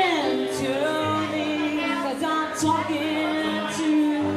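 A woman singing into a microphone, holding long notes that slide from one pitch to the next, over sustained electronic keyboard chords and low bass notes.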